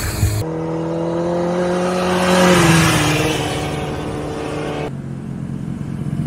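Sport motorcycle engine passing by under power: it grows louder, then its pitch drops as it goes past.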